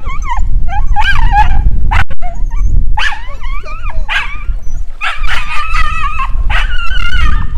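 Small white terrier yelping, whining and yipping in a rapid, excited string of high-pitched calls at a shark swimming just below the wharf edge, over a steady low rumble.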